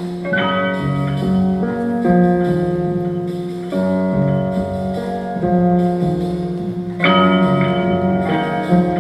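Instrumental music: sustained, ringing chords that change every couple of seconds, with a bright struck attack just after the start and another about seven seconds in.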